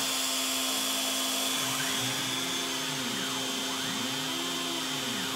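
DeWalt compact router motor running steadily as the spindle of a CNC router, while the machine's stepper motors whine in smooth arcs of rising and falling pitch as they drive the gantry around a circle.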